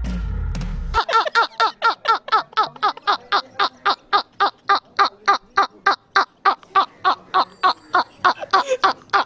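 A man laughing uncontrollably in a high-pitched, rhythmic cackle, about four short 'hee' pulses a second. A low rumble fills the first second before the laughter starts.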